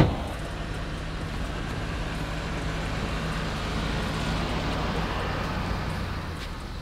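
A sharp clack at the very start, then a steady low vehicle engine hum with a rushing noise that swells and fades over a few seconds, like a vehicle running and moving close by.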